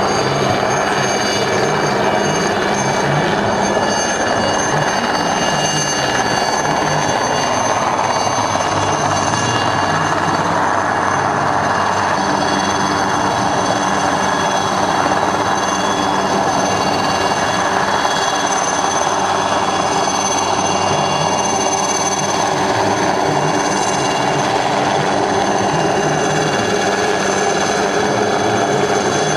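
Alouette III helicopter hovering for a winch rescue: a steady high turbine whine over the rapid chop of the rotor blades.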